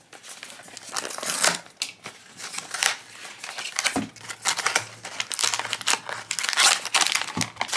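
Cardboard blind box being opened by hand, its flaps scraping and the wrapping inside crinkling in quick, irregular rustles that get busier in the last few seconds.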